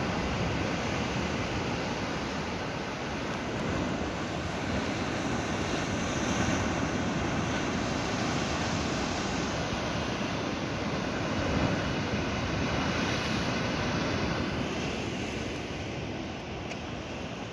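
Sea surf washing and breaking over rocks at the foot of a cliff: a steady, rushing roar of waves.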